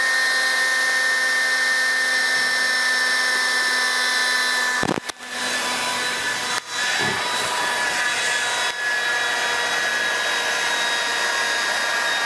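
DeWalt DCBL720 20V brushless handheld blower running at full speed with a steady fan whine, near the end of its battery's charge, its tone changing as the battery runs down. The sound drops out for a moment about five seconds in and dips briefly twice more.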